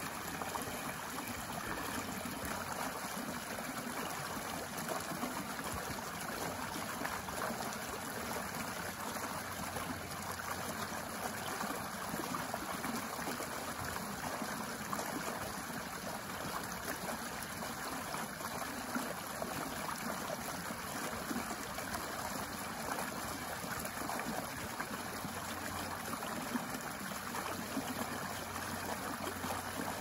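Small shallow stream running steadily over a short cascade into a pool, an even rush of water.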